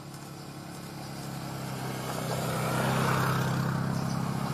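A motor vehicle's engine running and growing steadily louder, as if drawing near.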